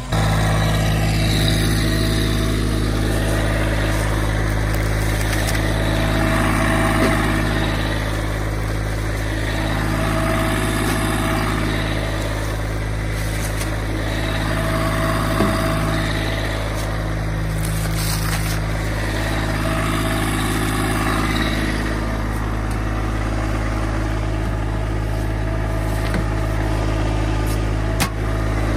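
Massey Ferguson GC1723E subcompact tractor's three-cylinder diesel engine running steadily, with one sharp knock near the end.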